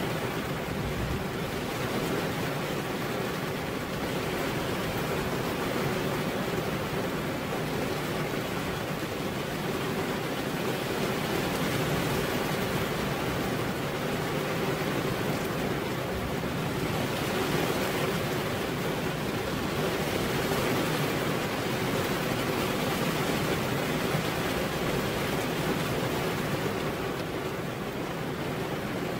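Heavy rain pouring onto a veranda roof, a steady, even rush of water with no single drops standing out.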